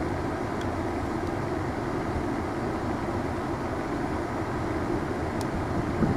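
Steady rumble of GE C40-9W diesel freight locomotives running, mixed with road traffic going by, with one vehicle swelling louder near the end.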